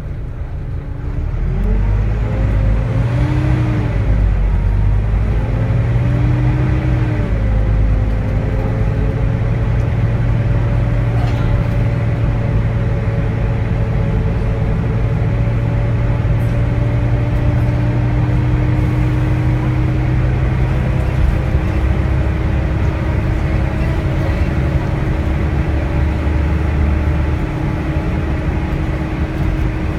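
Volvo D9A diesel engine of a Volvo B9TL double-decker bus pulling up a hill under load, with the whining 'hoovering' sound. About a second in the engine picks up, its pitch rises and dips a few times, then it holds a steady pull with a steady whine.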